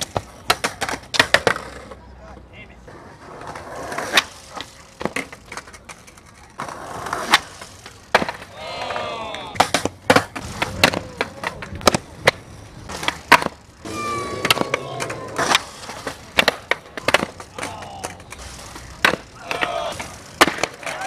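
Skateboards on stone paving: tails popping, boards slapping down and clattering, and wheels rolling, as a string of sharp knocks. Voices call out twice, about nine and fifteen seconds in.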